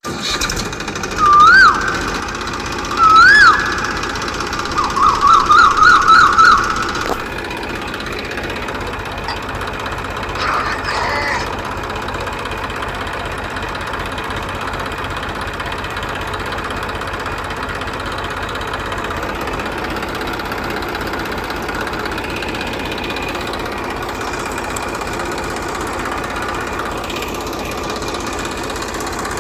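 A small engine running steadily. In the first seven seconds there are two rising-and-falling whistles and then a quick warbling run of whistles over it.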